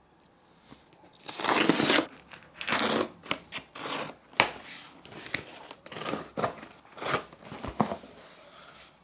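A taped cardboard shipping box being cut and torn open, starting about a second in: rasping rips of packing tape and cardboard, then flaps pulled back and packing paper rustling, with many sharp clicks and crackles.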